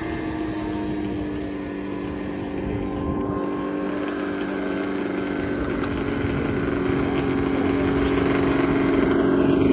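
Snowmobile engine held at high revs during a speed run, a steady drone whose pitch sinks slowly and which grows louder toward the end.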